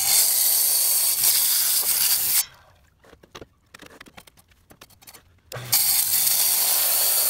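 Wet tile saw's diamond blade cutting through a concrete pier block, a loud steady hiss with water spray. It stops about two and a half seconds in, giving way to a few seconds of near-quiet with small clicks, then the cutting starts again shortly before the end.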